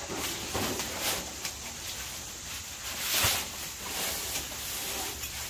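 Fabric and mesh of a USMC pop-up bed net rustling as it is handled and spread over a cot, with a sharper, louder rustle about three seconds in.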